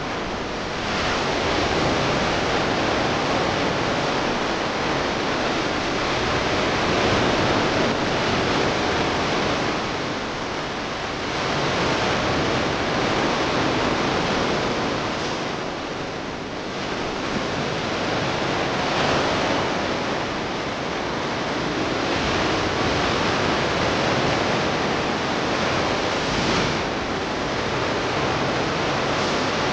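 Sea surf washing onto the shore, a steady hiss that swells and eases every several seconds.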